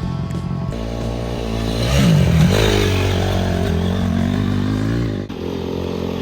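Four-stroke single-cylinder dirt bike engine running and revving while riding, its pitch swinging up and down about two seconds in, with background music over it.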